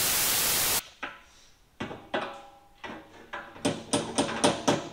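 A burst of even, hiss-like noise for under a second that cuts off sharply, then scattered sharp knocks with ringing tones, coming faster near the end.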